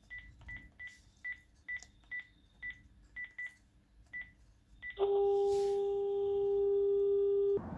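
Phone keypad beeping as a number is dialled: about a dozen short beeps with taps at an uneven pace. Then a single steady call tone sounds from the phone for about two and a half seconds and cuts off suddenly.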